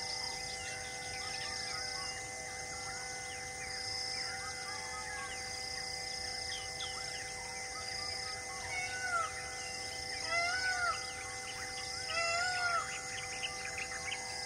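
Forest ambience: many birds chirping over a pulsing insect drone, with three louder arched bird calls about two-thirds of the way through.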